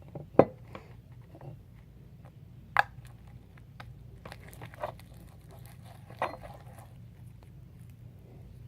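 Sticky homemade slime being handled, pressed and pulled apart in the hands, giving a few scattered squishing and clicking sounds over a faint steady low hum.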